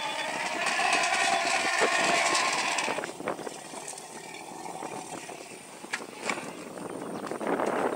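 African elephant calling: a long trumpet-like call with several steady tones that fades out about three seconds in, followed by quieter noise with a few clicks and a rush of noise building near the end.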